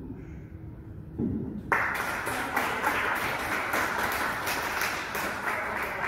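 Audience applauding. The clapping starts suddenly about two seconds in and tails off near the end.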